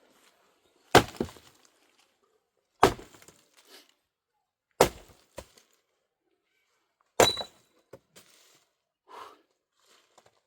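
Four sharp cracks about two seconds apart, some followed by a smaller crack: dry firewood being broken.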